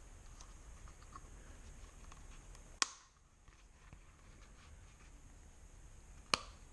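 Two sharp clicks of the metal snap on a leather holster's thumb-break strap, about three and a half seconds apart, with faint small ticks and rustle from the leather being handled in between.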